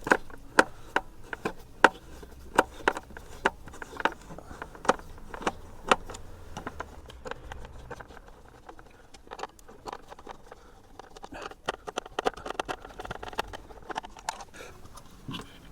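Irregular sharp clicks and knocks of a van's switch panel being worked free of its mounting and handled, louder and more spaced out in the first half, with a quicker run of small clicks later on.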